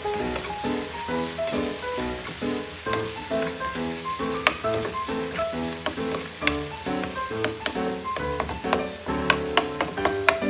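Diced onions, tomatoes and garlic sizzling in hot oil in a nonstick frying pan, stirred with a spatula that taps and scrapes the pan in several sharp clicks, most of them in the second half. Background music plays throughout.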